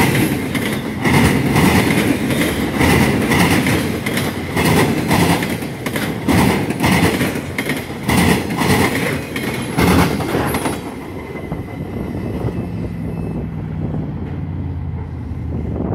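Wheels of loaded railroad flatcars rolling past close by, clacking and knocking over the rail joints. About eleven seconds in, the last car goes by and the clatter gives way to a steadier low rumble.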